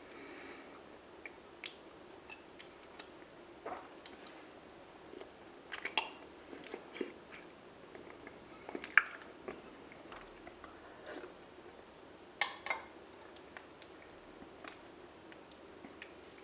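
Close-miked chewing of raw honeycomb, with scattered mouth clicks and smacks, the loudest about six, nine and twelve seconds in.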